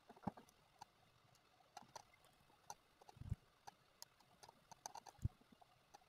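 Faint, irregular clicks of a computer mouse and keyboard, a dozen or so, the louder ones about three and five seconds in.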